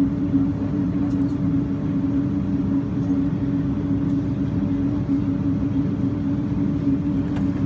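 Steady low rumble inside the cabin of a Boeing 777-200 rolling along the ground after landing, with a steady engine hum.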